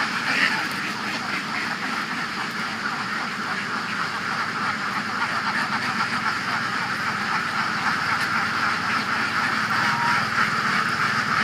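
A large flock of ducks, some fourteen hundred birds, quacking all at once in a steady, dense mass of overlapping calls.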